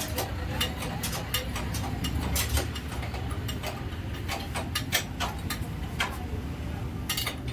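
Metal tools and wheel parts clicking and clinking at irregular intervals while a motorcycle wheel is being fitted, over a low steady rumble.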